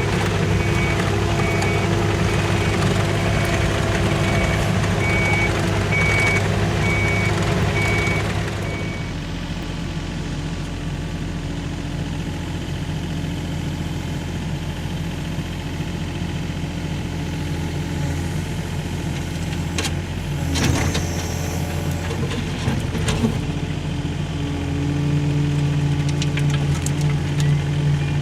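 Mini excavator engine running at raised revs while its travel alarm beeps steadily. About nine seconds in the beeping stops and the engine drops to a lower, steady idle, with a few sharp knocks past the middle and the revs rising a little near the end.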